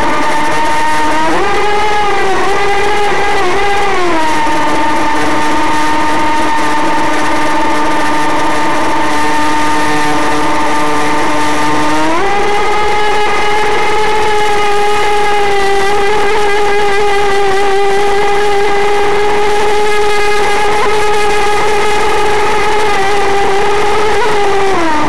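Novarossi N21 nitro glow engine of an RC racing boat running at high revs, a high-pitched buzz over the hiss of spray. Its pitch dips twice in the first few seconds, holds lower, then rises sharply about twelve seconds in and holds before starting to fall near the end.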